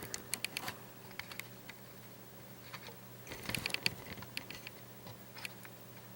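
Light clicks and taps of small metal lock pins and tools being handled on a work surface. There is a scatter of them in the first second and a half and a cluster about three and a half seconds in.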